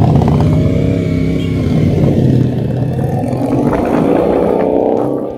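CFMoto CL-C 450 parallel-twin motorcycle engine pulling away from a stop and accelerating, its pitch climbing in the second half and easing off right at the end.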